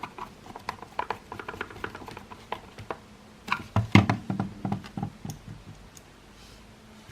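Small clicks and taps of the plastic parts of a Makita CL108FD cordless vacuum being handled and fitted together during reassembly, with a heavier cluster of knocks about four seconds in.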